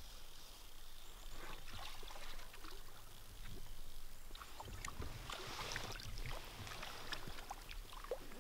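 River water splashing and trickling around a wading angler's legs and line as a hooked brook trout is brought in, with scattered small splashes and drips that get busier in the second half.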